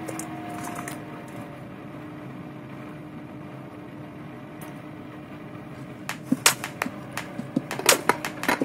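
A faint steady hum, then from about six seconds in a quick, irregular run of sharp clicks and taps: kitchen tongs gripping crispy air-fried chicken wings and setting them down on a glass plate.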